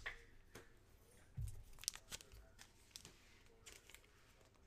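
Faint rustling and scattered clicks of trading cards and their wrappers being handled, with a soft thump about a second and a half in.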